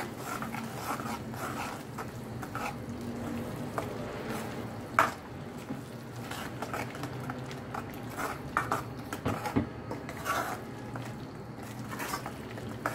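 A metal spoon stirring thick masala gravy in a metal kadhai: irregular scraping and clinking of the spoon against the pan, with one sharper knock about five seconds in.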